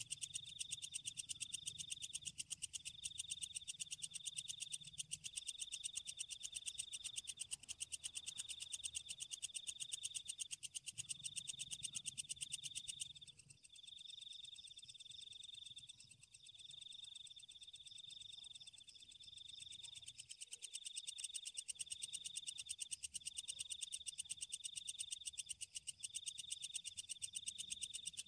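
Nocturnal animal chorus of calling frogs and insects: a high trill in repeated bursts about a second long, over a fast, steady pulsing.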